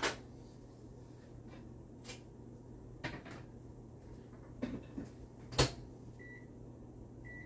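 Microwave oven being loaded and shut: a few light knocks and clicks, then a louder thump of the door closing about five and a half seconds in. After it come the keypad's short high beeps near the end, as the cooking time is set.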